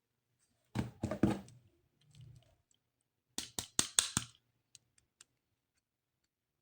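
Plastic toy pieces and packaging being handled: a short cluster of knocks about a second in, then a quick run of about six sharp clicks around the four-second mark, with a few faint ticks after.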